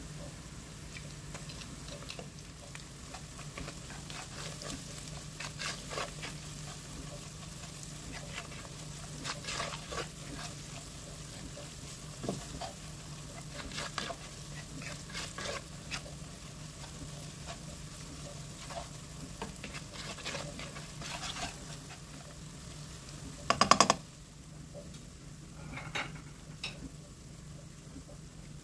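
Ground beef and spices sizzling in oil in a coated pot while a plastic spatula stirs and scrapes the pot, with a brief loud clatter about three-quarters of the way through. A steady low hum sits underneath.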